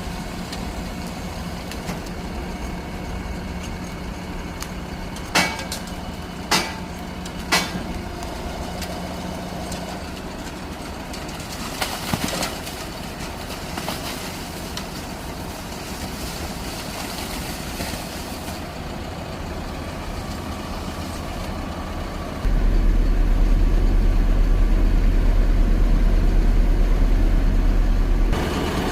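Street sweeper truck's engine running steadily, with three sharp knocks about a second apart early on. Near the end a much louder low drone comes in for about six seconds and then stops suddenly.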